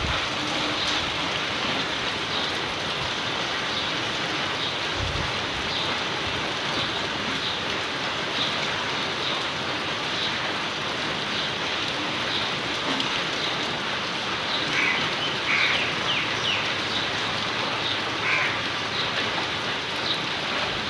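Heavy cyclone rain falling steadily, a dense even hiss with scattered drips and splashes, and a few brief, higher-pitched sounds about 15 and 18 seconds in.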